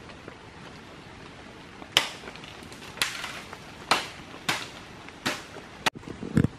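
A series of sharp cracks or knocks, six in all, roughly a second apart, followed near the end by a couple of dull low thuds, over a faint steady background hiss.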